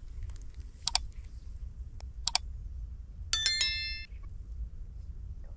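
Subscribe-button animation sound effect: two sharp mouse clicks, then a bright bell ding that rings out and fades within about a second.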